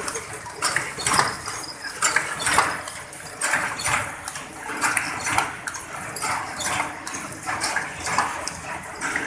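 Automatic paper ice-cream cup making machine running, its turret indexing with a rhythmic clatter about twice a second over a steady hum.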